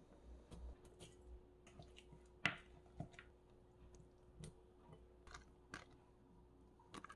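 Quiet kitchen handling: a spoon knocking and scraping in a glass mixing bowl as minced garlic goes in, then drained cockles tipped from a plastic colander into the sauce with soft wet clicks and taps. A sharp knock about two and a half seconds in is the loudest sound, over a faint steady hum.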